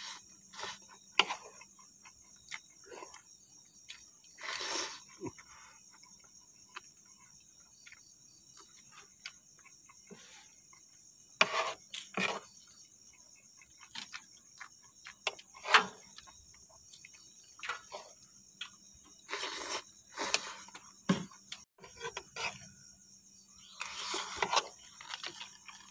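Slurping and chewing of instant noodles in short, irregular bursts, with sharp clicks of a spoon and fork on the plate, over a steady high chirring of crickets.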